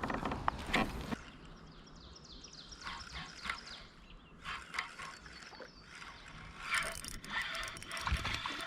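A bird calling a quick series of short, falling high notes, over scattered clicks and knocks near the start and toward the end.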